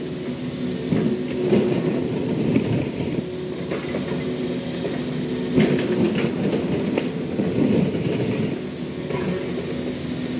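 Yanmar mini excavator's diesel engine running steadily under hydraulic load as its bucket drags and spreads dirt, with scraping surges and a few clunks from the bucket and arm.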